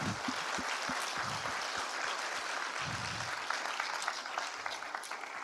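Audience applauding, fading toward the end.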